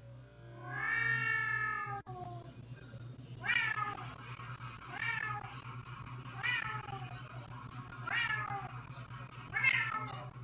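Domestic cat yowling at a dog in a hostile standoff. It gives one long drawn-out yowl, then five shorter yowls about every second and a half, each sliding down in pitch. A steady low hum runs underneath.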